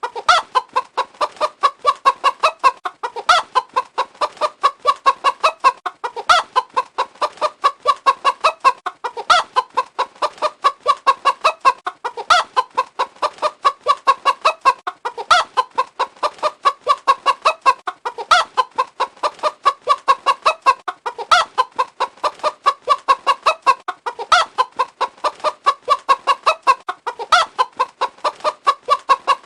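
Chicken clucking in quick short clucks, several a second, the same sequence looping about every three seconds.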